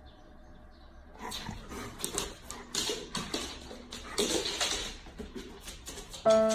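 Golden retriever making a string of short, irregular vocal sounds over about four seconds, starting about a second in. Music with held tones comes in near the end.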